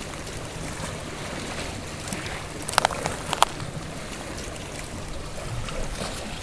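Steady sound of shallow seawater moving and lapping, broken by two short clicks about half a second apart near the middle.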